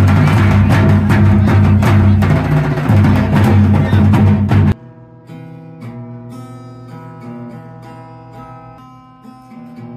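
Loud, bass-heavy music with a drum beat, which cuts off abruptly a little under five seconds in. Then a steel-string acoustic guitar is played at a much lower level, with plucked notes and chords ringing out.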